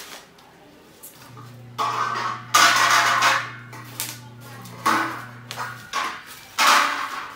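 Packaging from a flat-pack table being handled: several loud rustling bursts in a row, over a steady low hum.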